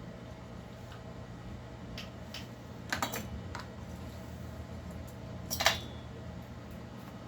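Small metal tools and parts clicking and clinking during a chainsaw teardown: a few light clicks about two to three and a half seconds in, then one louder clatter near six seconds, over a steady low hum.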